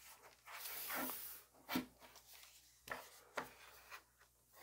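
An HP Envy 15m laptop being handled and turned over on a wooden desk: a rubbing slide, then a few short knocks and taps as it is set down.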